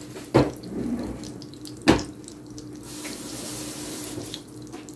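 Buttered bread frying in margarine in a nonstick pan, a steady sizzle that grows brighter for about a second and a half near the middle, with two sharp knocks about a second and a half apart near the start.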